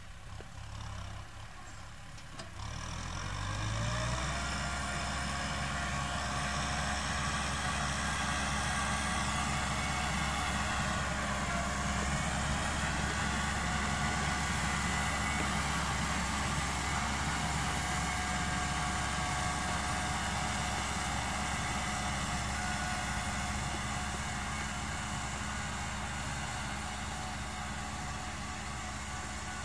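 Kubota M6040 tractor's diesel engine running under load while pulling a disc plough through dry soil. The engine note rises and gets louder about three seconds in, then holds steady.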